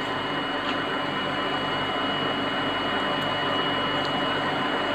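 Steady machine hum with a constant thin high whine, broken only by a few faint ticks of handling.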